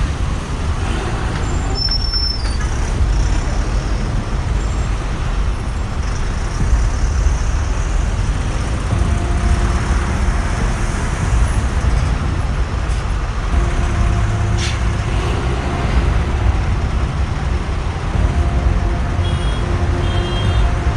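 Riding on a boda-boda motorcycle taxi in traffic: a steady, heavy low rumble of wind and road noise with the motorcycle and surrounding traffic, and a few held tones that come and go in the second half.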